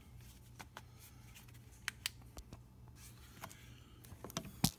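Scattered light clicks and knocks from handling the camera and light, over a faint steady low hum, with one sharper click near the end.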